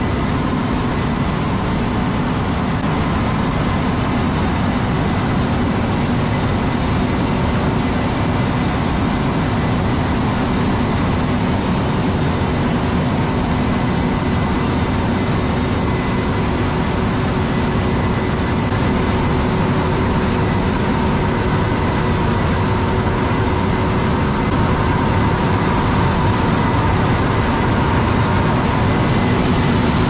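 Heavy farm machinery running steadily: the diesel engines of large combines and tractors working a corn field make a continuous low rumble with a constant hum. It grows slightly louder near the end.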